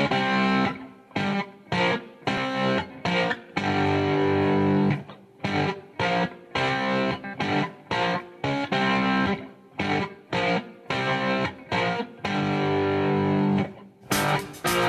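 Background music: a distorted electric guitar riff played in short chopped bursts with brief stops, breaking into longer held chords about four seconds in and again near the end.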